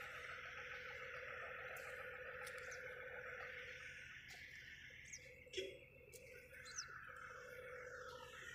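Faint open-field ambience: a steady background hum with a few short bird chirps about halfway through.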